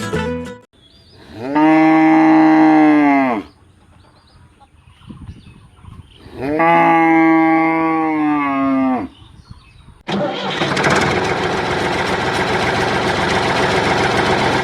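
A cow mooing twice, each a long low call of about two to three seconds. A few seconds later a loud, steady, rough mechanical noise cuts in suddenly and keeps going.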